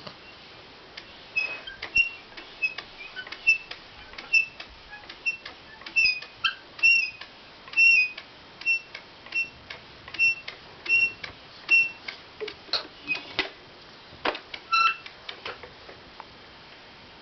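Toy car squeaking and clicking in short, high, quick pulses, about two a second, that stop near the end.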